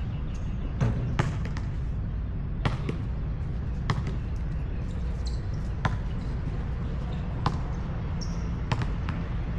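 Basketball bouncing on an outdoor hard court: single sharp bounces at irregular gaps of about a second or more, over a steady low rumble.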